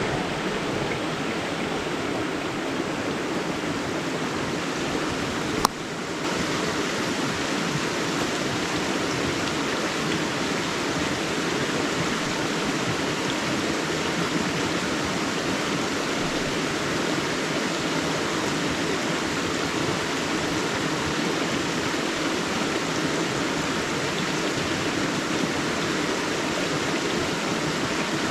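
River water flowing, a steady rush. There is one sharp click with a brief drop in level about six seconds in.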